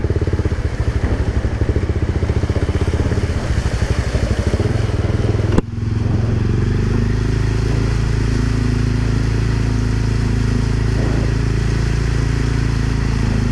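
Honda CBR300R's single-cylinder engine running under way, choppy and pulsing at first. A sharp click comes about five and a half seconds in, after which the engine note runs steady.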